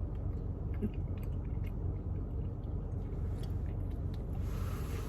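A person chewing a mouthful of Oreo Dirt Pie Blizzard, soft serve with Oreo pieces and gummy worms, with faint scattered clicks of chewing over a steady low hum.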